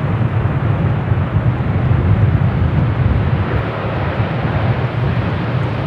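Jet engine noise from a landing Airbus A330-900 with Rolls-Royce Trent 7000 engines: a loud, steady low rumble.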